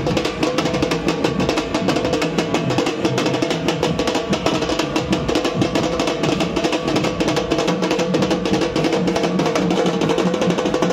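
Fast, continuous drumming with a steady held note underneath.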